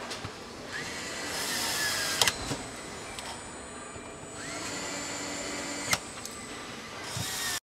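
A handheld power screwdriver whirs up and runs twice, each run about a second and a half, and each ends in a sharp click. Steady assembly-hall noise lies underneath.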